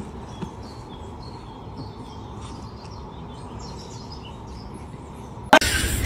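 Birds chirping faintly over a steady low background noise. A sudden loud burst of noise cuts in near the end.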